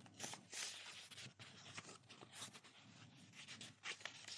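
Faint, soft rustling of a book and its paper pages being handled close to the microphone, in short scattered bursts.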